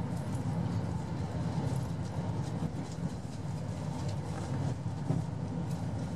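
Cabin running noise of a KiHa 189 diesel railcar at about 105 km/h: a steady low rumble of the engine and wheels on the rails, with faint clicks scattered through it.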